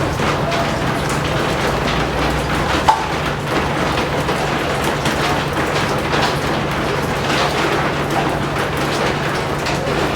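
Heavy rain falling steadily, with scattered sharp taps of drops, the loudest about three seconds in.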